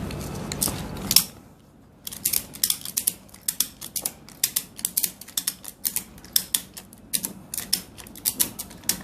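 A steady low hum stops with a sharp click about a second in. Then rapid, irregular mechanical clicking, several clicks a second, like a ratchet being worked: the tensioning mechanism of a spinal traction device drawing out the lower back.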